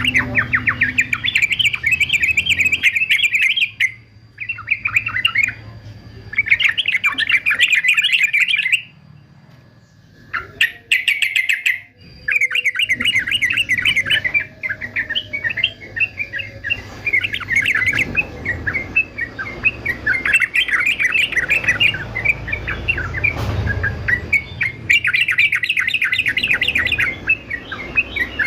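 Male yellow-vented bulbul (trucukan) singing a rapid, bubbling chatter of notes in bursts. It falls mostly silent for about three seconds near the middle, then chatters almost without pause.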